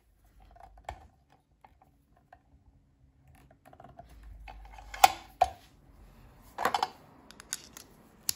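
Sharp clicks and knocks from working a pen press and fitting a cigar pen's brass and wood parts together by hand. The loudest clicks come about five seconds in, with a quick cluster shortly after.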